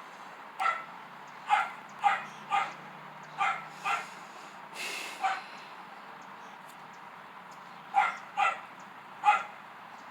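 Dog barking: short, sharp barks in irregular runs, about ten in all, with a pause of a couple of seconds past the middle.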